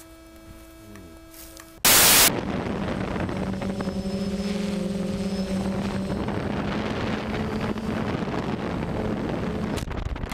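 A loud sudden crackle about two seconds in, then a small drone's propellers running steadily: a rushing noise with a low hum.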